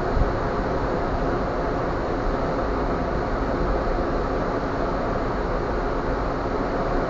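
Steady rushing noise with a low rumble from the stern of a cruise ship under way at sea: wind and the churning wake, with a small gust-like bump just after the start.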